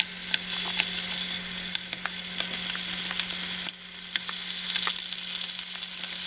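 Sliced raw potatoes sizzling and crackling in hot cooking oil in a non-stick frying pan as the slices are laid in one by one. A steady low hum runs underneath.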